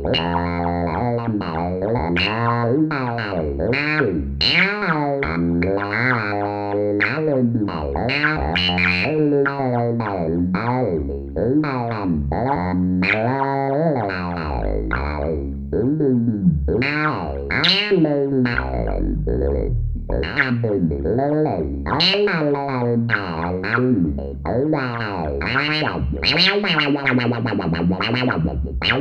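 Arturia MicroFreak synthesizer playing an alien-voice sound effect: buzzing, distorted, modulated speech-like babble whose pitch swoops up and down in quick syllable-like bursts, over a faint steady high tone.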